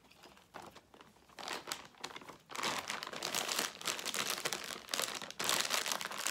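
Plastic snack bag crinkling as it is handled and its top folded over. A few light rustles come first, then it turns loud and dense about two and a half seconds in.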